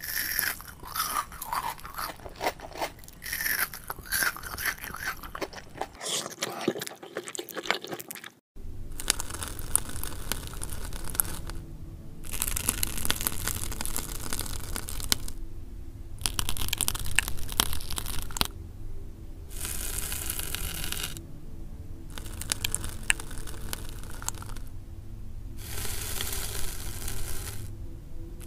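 Clicks and short squeaky tones for the first eight seconds or so, then chocolate pralines crunching and cracking as they are cut, in bursts of one to two seconds with short gaps between them.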